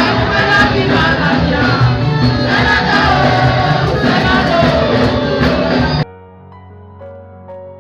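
Background music with choral singing, which cuts off abruptly about six seconds in and gives way to soft piano notes.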